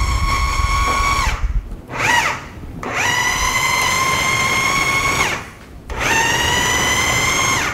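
Electric food processor pulsing a thick avocado pesto: the motor whines in four separate runs. Its pitch falls as it spins down between pulses and rises again as it restarts.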